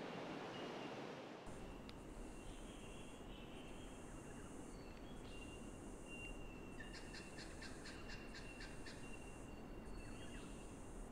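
Faint natural bush ambience. A soft rushing noise stops about a second and a half in. Then insects trill steadily on one high note, with higher insect buzzing that comes and goes, and a rapid run of chirps about seven seconds in.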